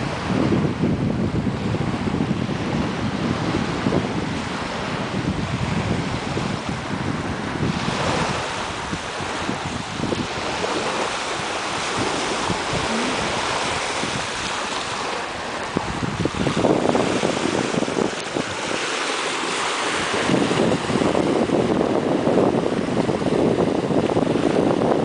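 Small waves washing onto a pebble beach, with wind buffeting the microphone in gusts that are heaviest in the last few seconds.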